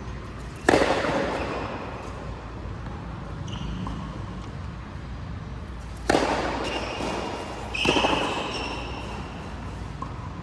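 Three sharp ball strikes during a racket-sport rally, each ringing out with a short echo: one about a second in, then two close together near the end, the last followed by a brief high squeak.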